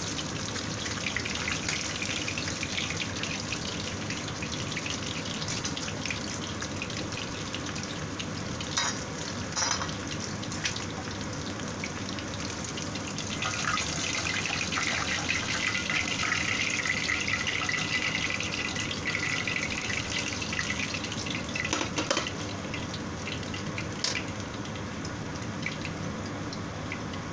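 Hot cooking oil sizzling and crackling in a frying pan while whole fried fish are lifted out, a little louder in the middle, with a few sharper clicks.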